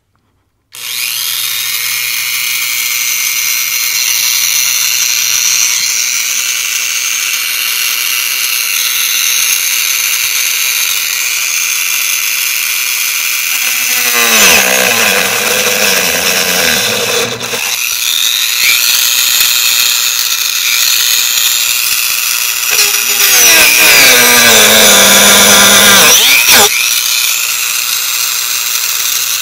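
Corded high-speed rotary tool with a cutting wheel starting up about a second in and whining steadily as it cuts through the plastic cabin air filter delete cover. Its pitch sags twice as the wheel bites into the plastic under load. It stops briefly near the end and starts again.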